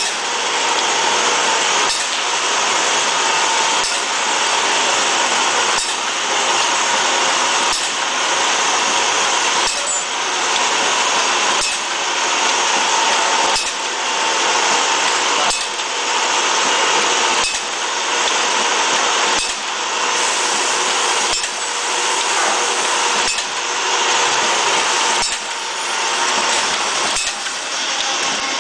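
Tea bag inner-and-outer packing machine running: a steady mechanical clatter and hiss with a faint whine, and a sharp clack about every two seconds as it cycles.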